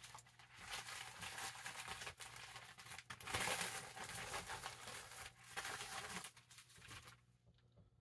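Rustling and crinkling of a paper mailing envelope and plastic packaging handled by hand as a parcel is unpacked, stopping about seven seconds in.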